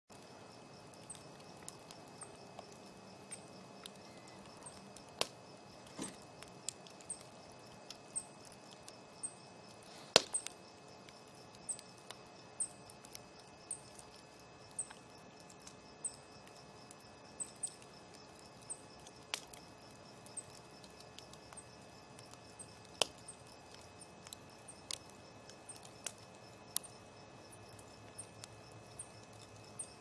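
Wood fire crackling: burning logs and embers give off irregular sharp snaps and pops over a low steady hiss, the loudest pop about ten seconds in.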